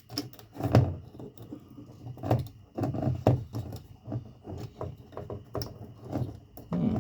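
Irregular close-up knocks, clicks and scrapes of hands working wires and a small screwdriver into a plastic RV wall thermostat base. The loudest knock comes about a second in.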